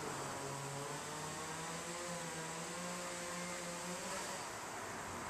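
A distant motor hums faintly over a steady background hiss, its pitch wavering slightly before it fades out about four seconds in.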